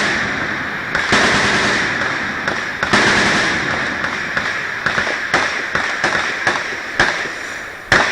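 Gunfire from many weapons of various calibres at a machine-gun shoot: big reports that echo and die away over a second or more. Between them come smaller shots, some in quick succession.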